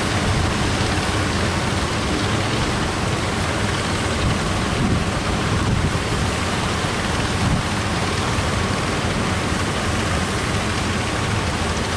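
Strong sea wind buffeting the microphone over the steady rush of breaking surf.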